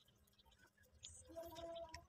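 Near silence: faint room tone with one light click about a second in and a faint steady hum near the end.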